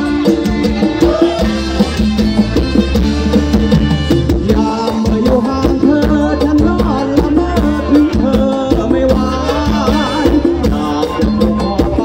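Amplified live band playing Thai ramwong (circle-dance) music, with a drum kit keeping a steady beat under keyboard and melody lines.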